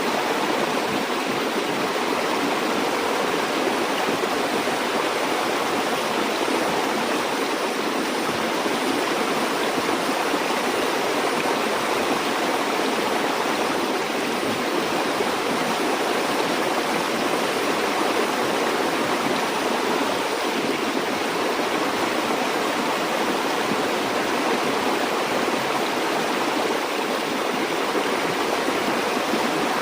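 Stream or river water flowing steadily: a constant rushing with no change over the whole stretch.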